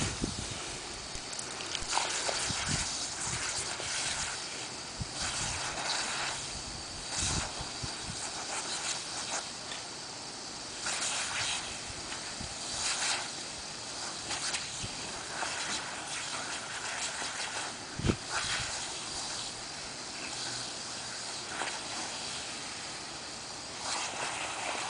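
Lawn sprinkler spray hissing steadily, broken again and again by splashy bursts as two dogs bite and snap at the jet of water. One sharp knock about two-thirds of the way through.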